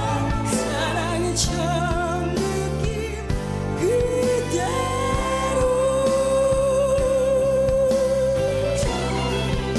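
A woman sings a Korean ballad live over a band of drums, keyboards and flutes. About four seconds in she swoops up into one long note, holding it with a wide vibrato until near the end.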